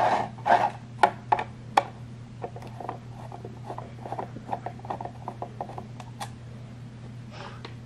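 Plastic alarm case turned over and knocked against a wooden tabletop a few times, then a screwdriver working a back-panel screw loose: a run of small ticks and scrapes, several a second.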